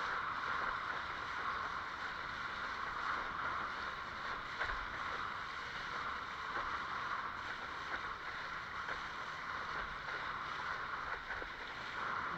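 Water rushing and splashing along the hull of a Fanatic Ultra Cat windsurfing longboard as it sails through chop, a steady rush with no let-up.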